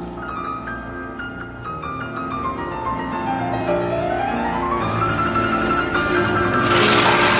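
Background piano music with a classical feel plays. Near the end a loud rush of running water from a shower head cuts in over it.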